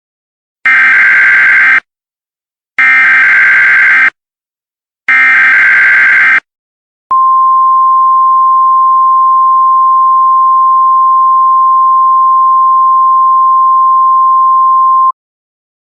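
Emergency Alert System data header: three short bursts of harsh, buzzing digital tones about a second apart, then a single steady high attention tone held for about eight seconds that stops abruptly. It signals an incoming tornado warning.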